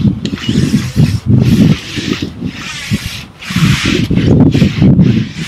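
Soft-bristled deck brush scrubbing wet non-skid fiberglass boat deck with deck cleaner, heard up close. There are about five back-and-forth scrubbing strokes, each lasting most of a second.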